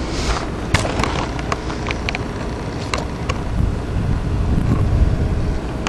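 Low, steady engine rumble mixed with wind buffeting the microphone, broken by scattered short sharp clicks and knocks.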